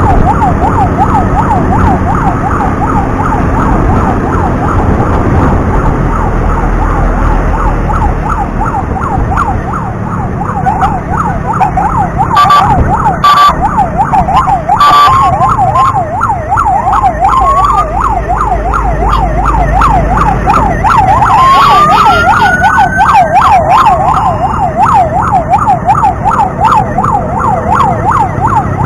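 Ambulance siren wailing in a fast yelp, its pitch sweeping up and down several times a second without a break, heard from a motorcycle riding alongside with engine and wind rumble underneath. Two short horn blasts come about twelve seconds in.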